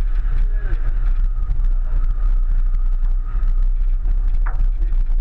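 1999 Subaru Forester driving over a loose dirt and stone track, heard from a camera mounted on its roof: a steady low rumble of engine, tyres and wind. A short squeak about four and a half seconds in.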